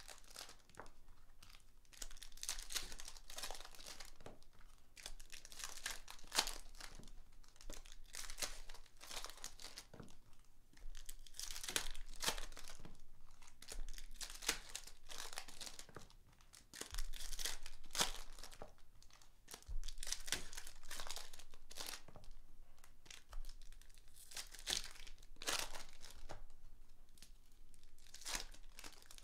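Foil trading-card pack wrappers torn open and crinkled by hand, in a long run of short crackling rustles with brief pauses between them.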